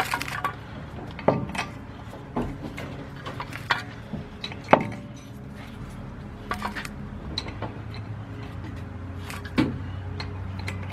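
Steel lug nuts clinking as they are picked up and threaded by hand onto a truck's wheel studs: scattered sharp metallic clicks, the loudest about four and a half seconds in, over a steady low hum.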